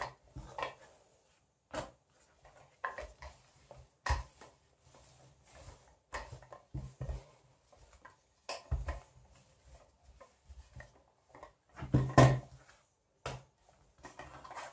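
Rolling pin rolling a ball of oiled dough out flat on a pastry mat: irregular soft knocks and rubbing as the pin is pushed back and forth, lifted and set down, the loudest bumps about twelve seconds in.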